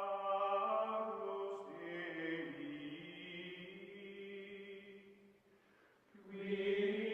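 Outro music of long held, slowly shifting chant-like tones. It fades down about five seconds in and swells back up near the end.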